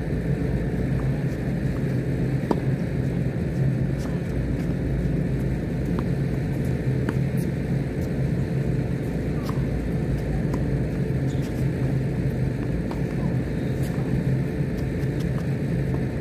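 Steady low rumble, with faint sharp pops every second or two from tennis rackets striking the ball during a rally.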